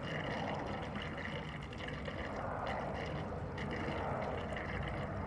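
Gasoline being poured steadily into the fuel tank of an Erayak 4500PD inverter generator, a continuous liquid pouring sound.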